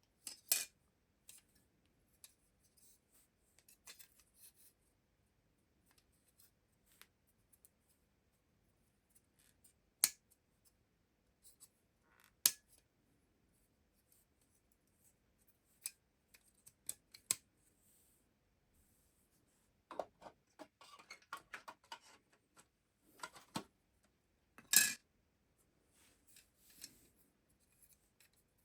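Hand-work noise from repairing a boombox's speakers: scattered sharp clicks and light scraping of small parts and tools, with a busy flurry of small clicks and scraping about twenty seconds in.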